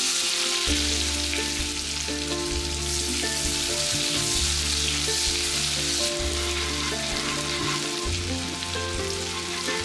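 Sliced onions dropped into hot mustard oil, sizzling loudly as they fry. The sizzle starts suddenly as they go in and stays steady.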